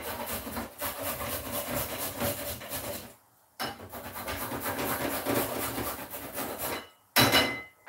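A carrot being grated on the fine holes of a handheld flat grater: quick, even rasping strokes in two runs with a brief pause between them, then a short louder scrape near the end.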